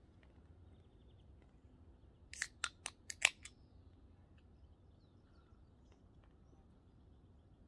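A drink can being opened: a quick run of four or five sharp clicks a couple of seconds in, the last one the loudest, as the ring-pull is worked and pops.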